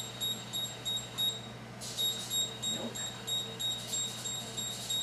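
Spot Collar dog e-collar beeping: short, high-pitched beeps about three times a second, with a brief pause about a second and a half in. It is the collar's warning, set off by being within range of the spotter on the trash can, and it keeps beeping until it is moved away or switched off.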